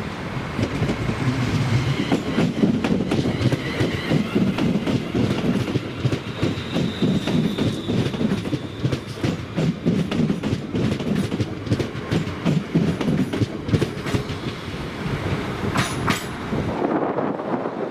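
ScotRail Class 380 electric multiple unit running past over a viaduct, a continuous rumble with rapid clickety-clack of wheels over rail joints. The train sound cuts off abruptly about a second before the end.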